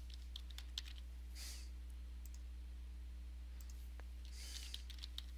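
Faint, scattered clicks of computer keys and a mouse as a user name is typed into a login box, over a steady low electrical hum.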